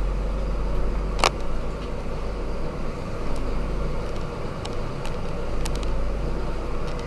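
Mercedes-Benz Zetros 6x6 truck's diesel engine running steadily as a low drone, heard from inside the cab while the truck drives slowly through mud. There is a sharp click about a second in and a few faint ticks later.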